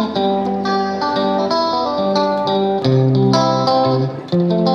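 Background music: a guitar playing a melody of plucked notes.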